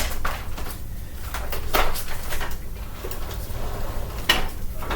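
Plastic vacuum cleaners being handled and shifted about: a sharp knock right at the start, further knocks about two seconds in and near the end, over a low steady hum.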